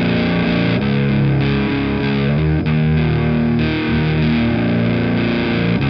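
Distorted electric guitar: a Fender Jazzmaster tuned to drop B on its bridge pickup, through a Sunn Model T-style drive pedal and a Sound City 50 PA Plus amp, playing a slow riff of held notes and chords.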